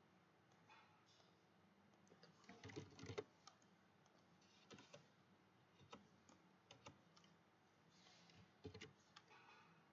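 Faint, scattered clicks of a computer mouse and keyboard over near silence, with a quick cluster of louder clicks about three seconds in and a few more spread through the rest.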